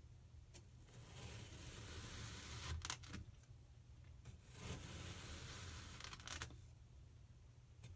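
Kinetic sand being cut: soft, gritty scraping strokes of a second or two each, separated by brief pauses, with a few faint taps in between.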